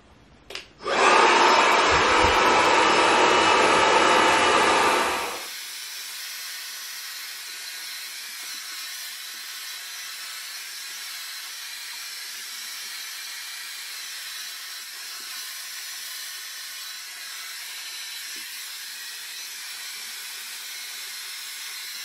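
GHD Helios hair dryer starting about a second in and blowing loudly with a steady rushing noise. After about four seconds the sound drops to a quieter, thinner steady hiss that carries on.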